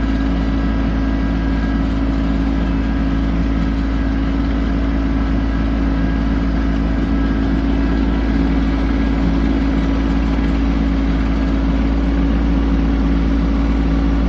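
Tractor engine running steadily, a constant low drone with no change in speed.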